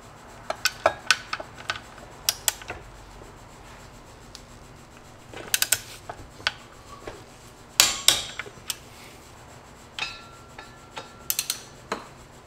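Wrench on the driveshaft bolts as they are torqued down: irregular clusters of sharp metallic clicks and clinks. The densest run, about ten seconds in, includes a brief ringing clink.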